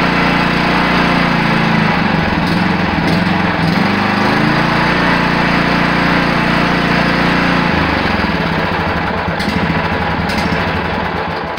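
Kawasaki FC420V single-cylinder engine on a walk-behind mower running after a key start, its speed wavering a couple of seconds in, and the sound falling off near the end. It runs well.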